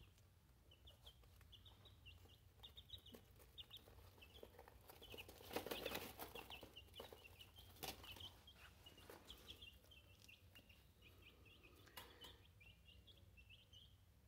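A brood of young Kelso game chicks peeping faintly: many short, high chirps in quick succession throughout. A brief rustle about six seconds in, with a couple of sharp clicks later.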